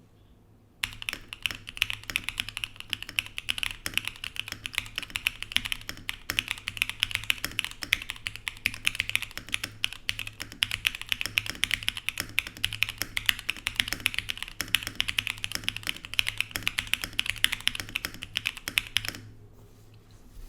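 Mode Sonnet mechanical keyboard with lubed Durock POM switches, aluminium plate and PBT keycaps, typed on quickly and continuously in a dense run of key strokes. The typing starts about a second in and stops about a second before the end.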